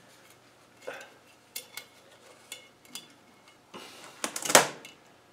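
Metal parts clinking and knocking against a Rover 3500 steering box as it is handled and worked on by hand: scattered light clicks with a little metallic ring, and a short cluster of louder knocks about four and a half seconds in.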